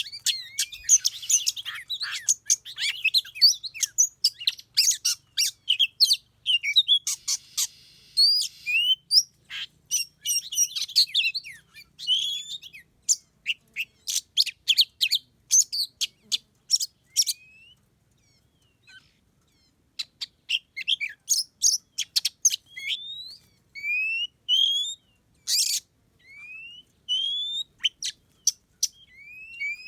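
Songbirds calling: a rapid run of sharp chirps, clicks and short rising whistles, dense at first, then falling nearly quiet for a couple of seconds past the middle before starting again.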